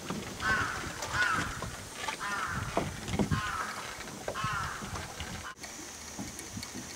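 A crow cawing, about six short harsh calls spaced under a second apart, with scattered low knocks beneath. The calls stop abruptly about five and a half seconds in.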